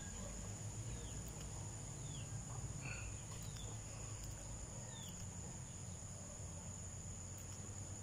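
Insects droning steadily at a high pitch, with a few faint short bird chirps over a low background rumble.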